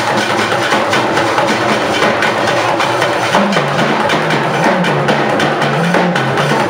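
Music driven by drums and percussion, with rapid, steady strokes over a bass line that moves up and down.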